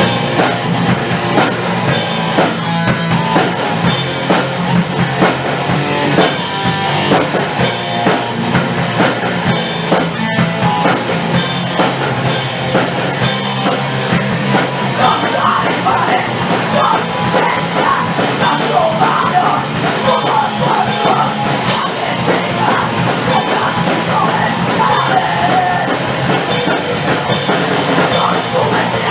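A punk hardcore band plays a loud, fast song on drum kit and electric guitars.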